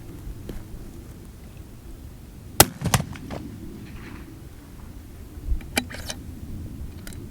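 Sharp cracks on a rifle firing line: a loud crack about two and a half seconds in with a second knock just behind it, then a sharper click and a few smaller clicks near six seconds, over a steady low rumble.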